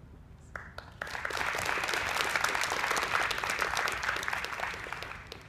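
Audience applauding: a few scattered claps, then full clapping from about a second in that dies away near the end.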